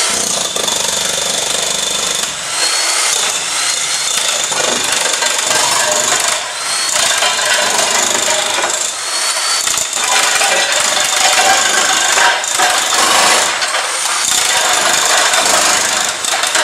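Electric demolition hammer on a Makinex Jackhammer Trolley, running continuously as its chisel blade strips floor tiles off concrete, with a few brief dips in the hammering.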